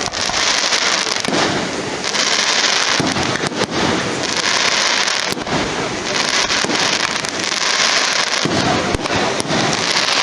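Fireworks going off: a dense, continuous crackling broken by scattered sharp bangs.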